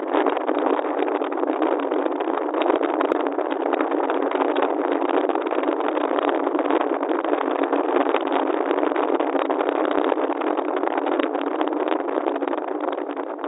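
Steady rushing road and wind noise of a car driving through city streets.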